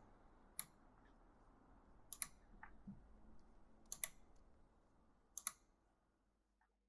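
Slow, uneven typing on an E-Element mechanical gaming keyboard: a handful of sharp key clicks spaced a second or more apart, some in quick pairs, over faint hiss.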